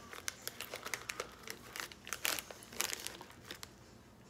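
Plastic snack bag of cracker chips crinkling in quick, irregular crackles as a hand rummages inside and pulls out a chip; the crinkling stops near the end.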